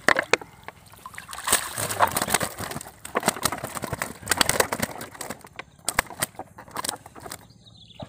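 Water splashing and sloshing, with scattered knocks on a wooden boat, as a gray eel-catfish caught on a plastic-bottle float line is hauled up and swung aboard. The commotion dies down near the end.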